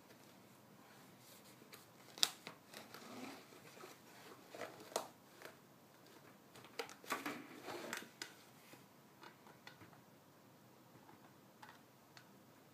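Faint handling noise from a clear plastic container being moved about: a scatter of sharp little clicks and soft rustles. The sharpest click comes about two seconds in, with a cluster between about five and eight seconds.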